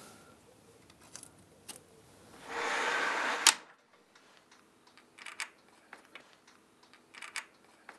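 Handling noises while a bolt is fitted to a metal security gate. A rasping scrape lasts about a second and ends in a sharp click, then come a few small metallic clicks in pairs.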